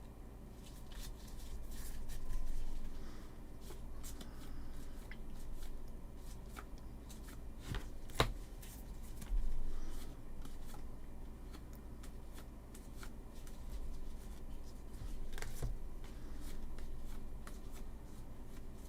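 Trading cards being flipped and slid through the hands one by one, a soft rustle with small sharp ticks and one louder snap about 8 seconds in.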